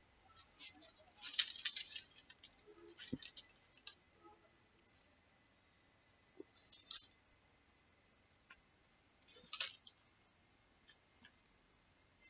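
Scattered light metallic clinks and taps of steel bowls and utensils being handled, coming in small clusters with quiet gaps between, the loudest about a second and a half in.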